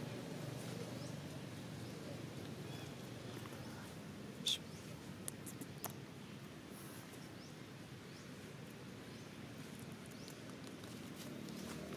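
Outdoor ambience: a low steady rumble, broken by one short, sharp squeak or click about four and a half seconds in and a couple of fainter clicks just after.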